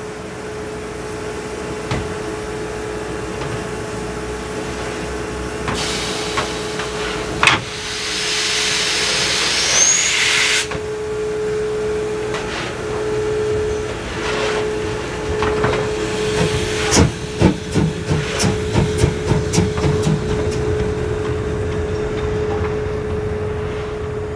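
Narrow-gauge steam locomotive standing with a steady hiss and hum, then a loud blast of escaping steam for a couple of seconds about eight seconds in. From about sixteen seconds it starts away with exhaust chuffs, about two a second and quickening.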